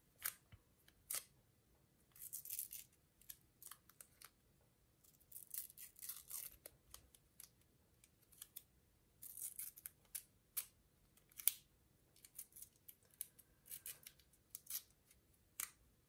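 Washi tape being torn by hand into short pieces: a run of short, quiet, scratchy rips at uneven intervals, with the sharpest about two-thirds of the way through.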